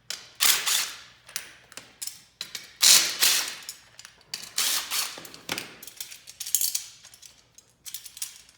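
Hand ratchet wrench clicking through a series of turning strokes with short pauses, working the 1/2-inch bolts of an adjustable steel garage door opener reinforcement bracket.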